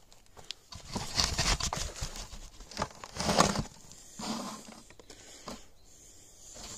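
Loose garden soil being tipped and worked into a raised bed, pattering and rustling in uneven bursts, the loudest about a second in and about three seconds in.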